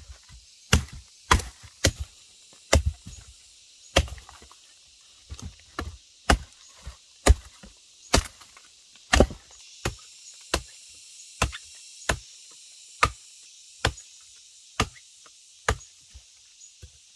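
A blade chopping into wood with repeated sharp blows, a little over one stroke a second, keeping an even pace throughout.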